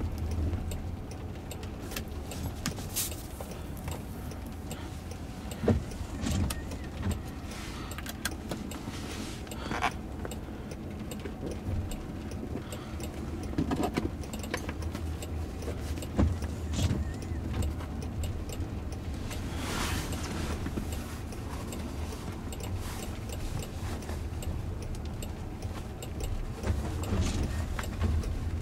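Cabin sound of a Jaguar I-Pace electric car driving slowly on wet pavement: a steady low road and tyre rumble, with scattered light clicks and taps.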